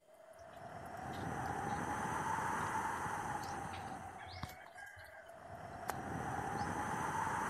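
Gusty tropical-storm wind rushing through palm and other trees, swelling, easing about halfway, then swelling again. A faint bird call sounds near the middle.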